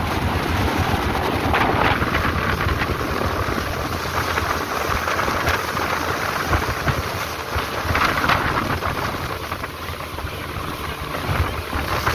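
A boat's engine runs steadily, with wind buffeting the microphone.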